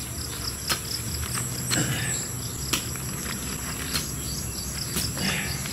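Garden hoe chopping into loose soil, one dull strike about every second, over the steady chirring of insects.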